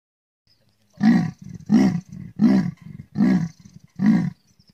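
A big cat roaring: five loud roars in a row, about three quarters of a second apart, starting about a second in, with quieter breathy sounds between them.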